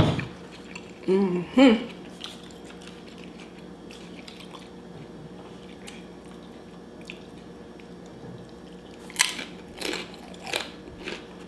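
Close-miked eating of a fried taquito dipped in Alfredo sauce: a short vocal sound about a second in, faint wet mouth clicks, then a few crisp crunching bites near the end.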